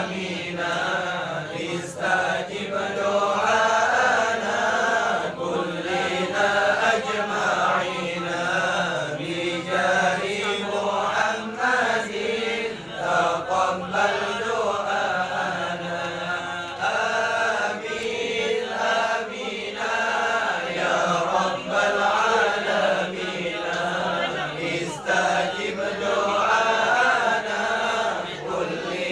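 A group of men chanting Arabic sholawat, devotional verses in praise of the Prophet, together in a continuous chant.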